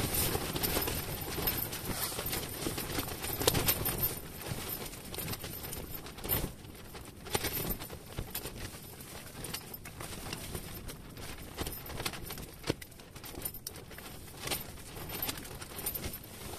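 Scattered light taps, clicks and rustles of ice-fishing line and tackle being handled over the ice hole, a few slightly louder knocks among them.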